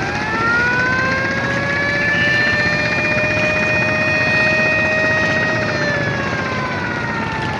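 A long horn blast, likely from a river passenger launch, with several tones sounding together. Its pitch rises as it starts, holds steady for about five seconds, then slides down as it dies away, over a steady background rumble.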